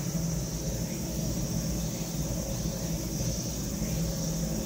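Steady outdoor background noise: a low rumble with a constant high-pitched insect drone above it.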